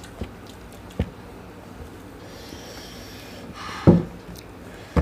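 People eating rice by hand from steel plates: a steady low background with a few soft taps, and about four seconds in a short vocal sound from one of the eaters, the loudest thing heard.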